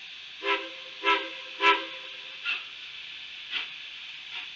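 Three short toots of a narrow-gauge steam locomotive's chime whistle, each a chord of several notes, about half a second apart. Several fainter, shorter bursts follow and fade away, over a steady hiss.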